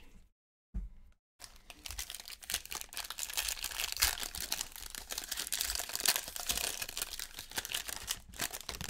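Foil wrapper of a baseball card pack being torn open and crinkled by hand, a dense run of crackling starting about a second and a half in and stopping just before the end.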